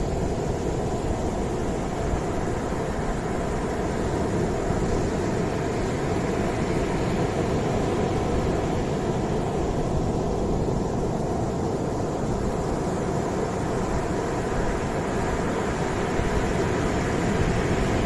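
Ocean surf breaking and washing up a sandy beach: a steady, deep wash of noise.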